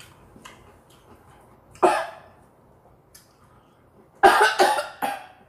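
A woman coughing while eating: one cough about two seconds in, then a harder run of three or four coughs near the end. She later puts it down to the spicy seasoning catching in her throat. Faint chewing clicks at the start.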